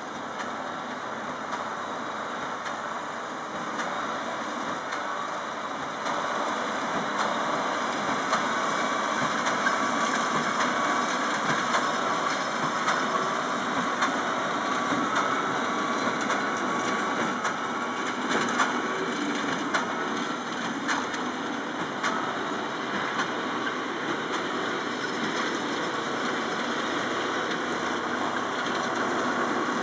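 John Deere tractor pulling a Claas Quadrant 3200 large square baler while baling straw: the engine runs steadily under load, with repeated knocks and clatter from the baler's mechanism. It gets louder about six seconds in.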